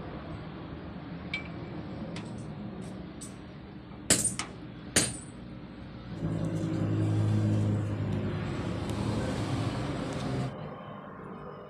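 Sharp metallic clinks of a steel barrel hinge being handled against a steel sheet, twice about a second apart, with a few lighter ticks before. After that, a vehicle engine runs steadily for about four seconds and then fades.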